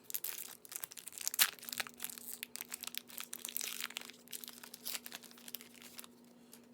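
Baseball card pack wrapper being torn open and crinkled by hand: a dense run of crackling that stops about six seconds in.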